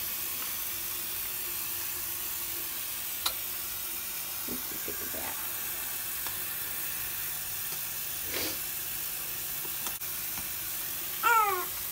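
Steady hiss of a running shower, with a newborn baby's short, high whimper near the end.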